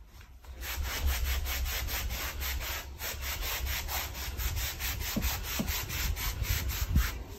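Sock-clad feet shuffling across Altro vinyl safety flooring, the soles rubbing the sheet in quick, even strokes about four or five times a second, with low thuds from the floor underneath.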